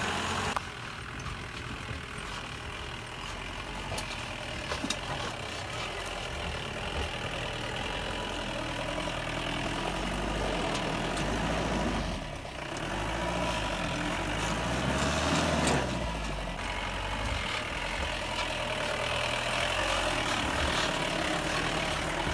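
Off-road vehicle's engine straining up a steep, rough mountain track. Its pitch drops and climbs back again about two thirds of the way through, and there are a few knocks from the bumpy ride.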